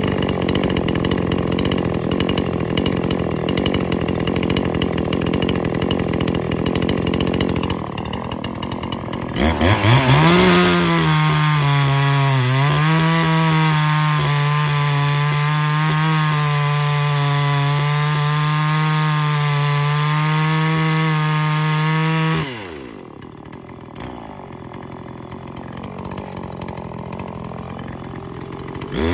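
Ported two-stroke Neotec NH843 chainsaw, a Husqvarna 543XP clone with its base gasket deleted, idling. About nine seconds in it revs up and cuts through a log at full throttle for some thirteen seconds, its pitch dipping briefly as it loads in the cut. It then drops back to idle and revs up again right at the end.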